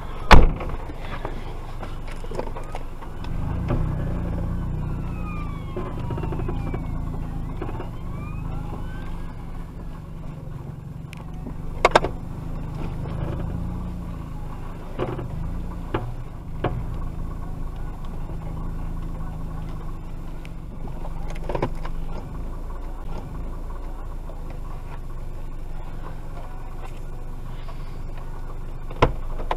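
A fire engine's siren wails in rising and falling sweeps through the first several seconds, over a low engine rumble that fades after the middle. A sharp knock comes about half a second in, with a few fainter clicks later.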